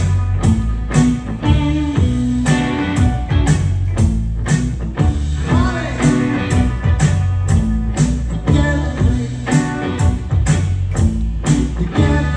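Guitar-led band music with a steady drum beat, about two beats a second.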